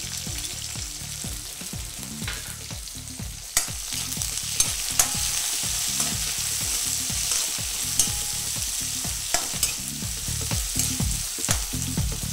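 Sliced onions frying in hot oil with cumin, curry leaves and green chillies in a kadai: a steady sizzle that grows louder about three and a half seconds in. A metal spatula clicks against the pan now and then as the onions are stirred. This is the start of frying the onions, meant to go on until they turn transparent.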